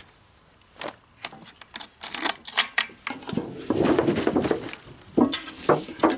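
Handling noises of objects being picked up and set down: a run of irregular clicks, knocks and rattles that starts about a second in and grows busier toward the end.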